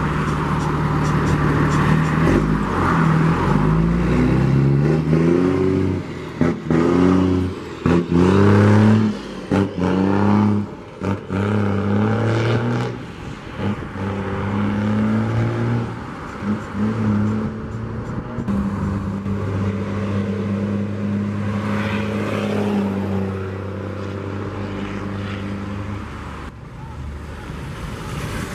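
Heavy diesel trucks pulling away in convoy, engines revving up through the gears: the pitch rises again and again with short breaks at each gear change over the first dozen seconds, then settles into a steady run.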